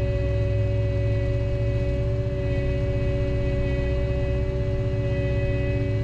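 Skid steer loader's diesel engine running steadily at a constant speed, heard from inside the cab: a deep rumble with a steady whine on top.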